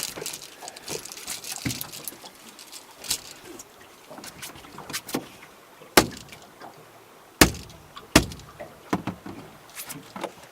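Scattered knocks and clunks of gear and movement in a boat, with three loud sharp knocks in the second half, over a faint steady hiss.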